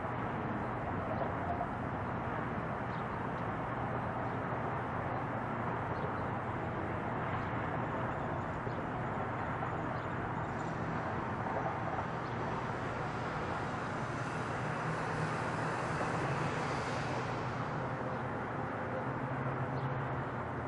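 Distant twin-engine Boeing 777 jet climbing away after takeoff: a steady jet rumble that turns hissier for a few seconds past the middle.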